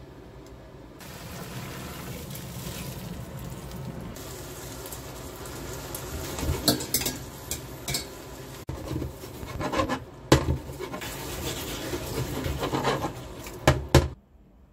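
Spaghetti being tossed and stirred into tomato sauce in a frying pan, with a steady sizzle. From about six seconds in, utensils knock and scrape against the pan several times, the loudest just before the sound cuts off suddenly near the end.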